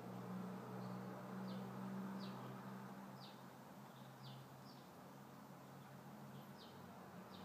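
Faint chirping of a small bird: short falling notes repeated irregularly, about eight of them, over a steady low hum.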